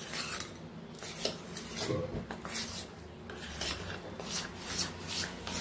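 Hand mixing thick urad dal vada batter with chopped onion in a stainless steel bowl: repeated rubbing and scraping strokes of fingers and batter against the steel, about three a second.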